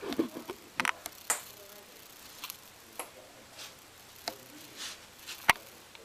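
Back joints popping under a manual back-cracking adjustment: a few soft clicks and rustles, then one sharp, loud crack near the end.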